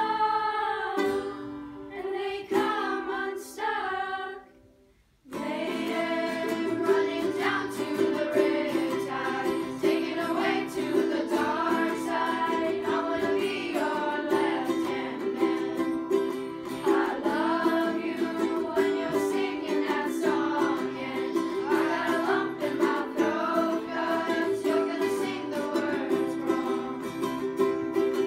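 Children singing a song together to strummed ukulele and acoustic guitar. The music thins out and drops almost to silence about five seconds in, then starts again and runs on steadily.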